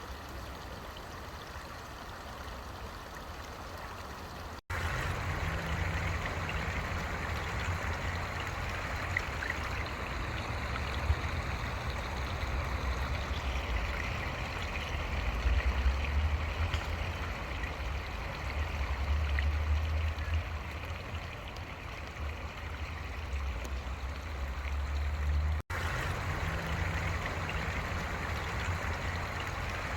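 Stream water running steadily. There are abrupt cuts about five seconds in and again near the end; between them the water is louder, over a low rumble.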